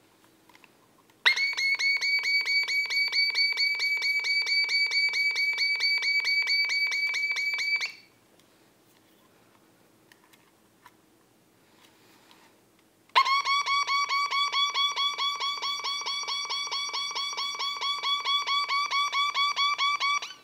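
Toy ray gun's electronic sound effect: a rapidly pulsing, steady-pitched high beeping for about six and a half seconds. After a pause with a few faint clicks, a second, lower-pitched pulsing beep runs for about seven seconds.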